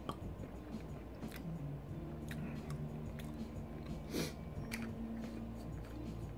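Close-miked chewing of spicy chicken poutine, with scattered wet mouth clicks and a sharper click about four seconds in.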